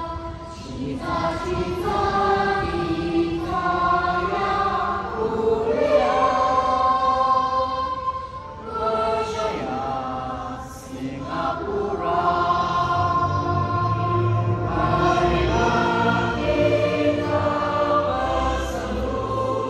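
A large crowd singing together with music, in long held phrases, with a deep bass coming in about two-thirds of the way through.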